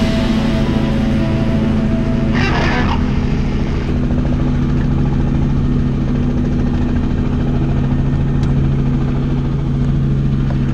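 Helicopter engine and main rotor running on the ground, heard from inside the cabin: a steady low hum with a fast, even chop. A short rushing noise about two and a half seconds in.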